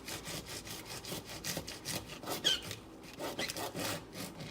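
Knife sawing through a bunch of fresh green beans on a cutting board, trimming them in quick repeated strokes of several a second.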